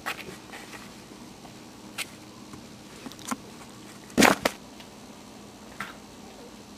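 Maltese puppies scuffling at play: scattered light clicks and knocks, with a louder double knock about four seconds in.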